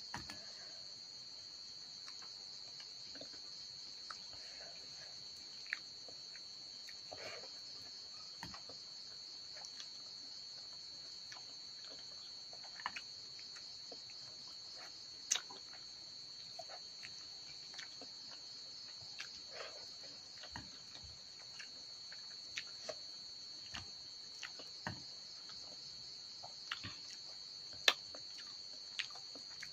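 Crickets chirping in a steady, continuous high trill, with scattered soft clicks and taps from eating rice by hand out of metal bowls; the sharpest click comes near the end.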